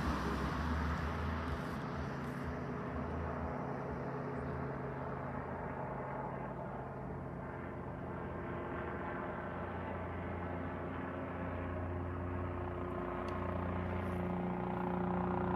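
Steady engine drone, low and even, getting louder toward the end.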